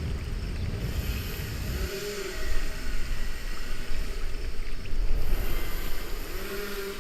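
Rushing water and splashing around a river-rapids raft. A low rumble under it drops away about two seconds in, and the water surges unevenly after that.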